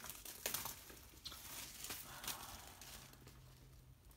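Faint handling of a shrink-wrapped Blu-ray package being opened: light plastic crinkling with a few sharp clicks and snaps in the first two and a half seconds.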